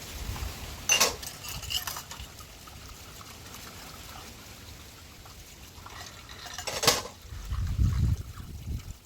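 Two sharp clinks, one about a second in and one near the end, over faint liquid and handling sounds, with a low rumble just after the second clink.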